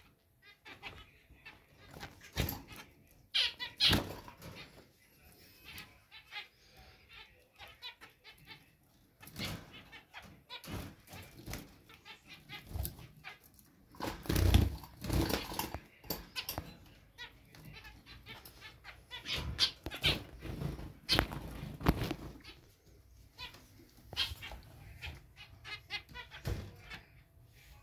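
Zebra finches giving short nasal squeaky calls, mixed with scattered knocks, clicks and wing flutters as the birds move about.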